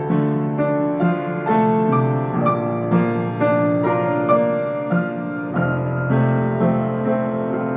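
Yamaha C1X baby grand piano being played: a slow, gentle passage of sustained chords and melody, with a new note or chord struck every half second to a second.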